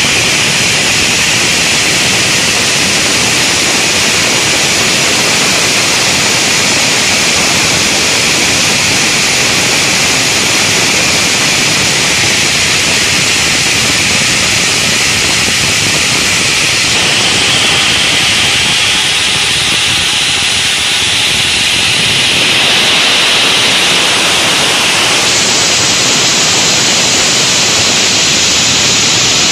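Granite block cutting saw running and cutting stone, giving a loud, steady rushing noise with no clear beat. Its tone shifts twice, a little past the middle and again near the end.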